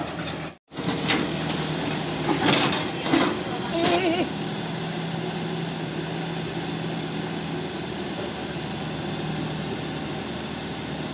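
Excavator's diesel engine running with a steady low hum, with brief voices about two to four seconds in.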